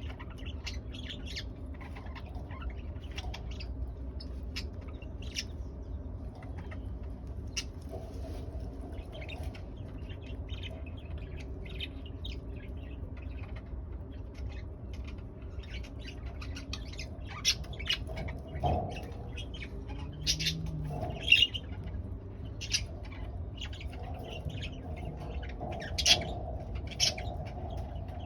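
Pet budgerigars chirping and chattering in a stream of short, high calls, a few louder ones in the second half, over a steady low hum.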